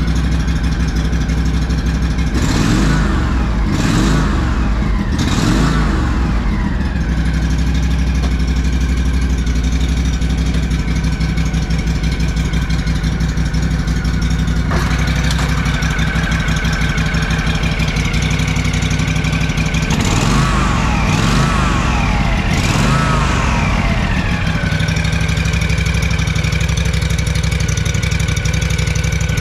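Kawasaki FS481V 603 cc air-cooled V-twin of a lawn tractor running after a cold start, revved up and down a few times early on. A steadier, higher whine joins about halfway, and there are a couple more revs later.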